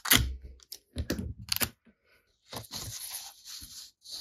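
Paper sheets being handled and slid across a cutting mat, rustling, with a few sharp knocks in the first second or so, the loudest right at the start.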